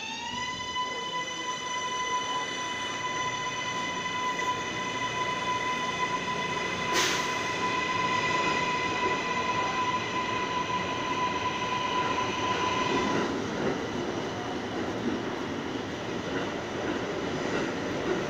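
New York City subway train's traction motors whining as it pulls away. The rising whine levels off just after the start into a steady high tone that stops about thirteen seconds in. A single sharp bang comes about seven seconds in, and the rumble of wheels on the rails grows as the cars roll past.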